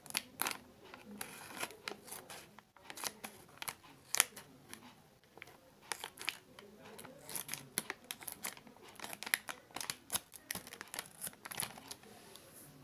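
Plastic biscuit packet being handled and opened: irregular crinkling, crackling and tearing of the wrapper.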